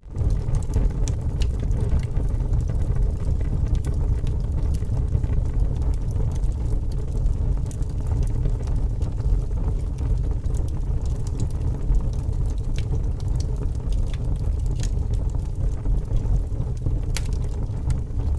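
Fire burning in a fireplace: a steady low roar with scattered sharp crackles and pops from the logs.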